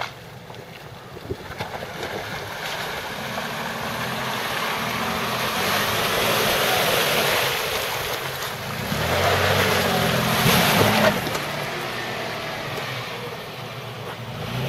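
Jeep Liberty Renegade engine running under load while it drives through a deep muddy water hole, its tyres churning and splashing through the water. The splashing swells twice, loudest about six and about ten seconds in.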